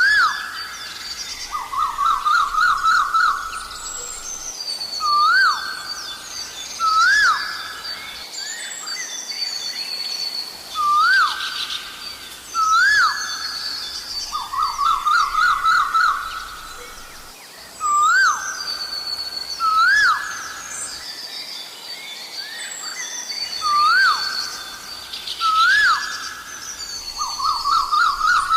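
Asian koel calling over and over: single rising whistled notes, often in pairs, alternating with runs of quick rising notes. Smaller birds chirp higher in the background.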